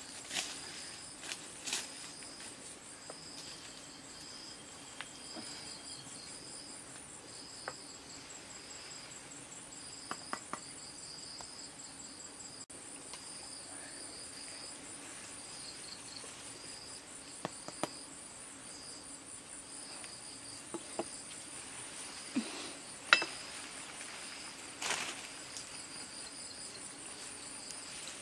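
Insects chirping in steady, high, pulsing trills, with scattered clicks and snaps of branches and bark as someone climbs a tree, and one sharp snap late on.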